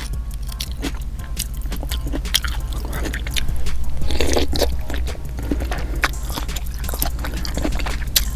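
Close-miked chewing: a person eating green-lipped mussels in butter sauce, with irregular wet smacks and small clicks from the mouth, and a brief fuller mouth sound about four seconds in.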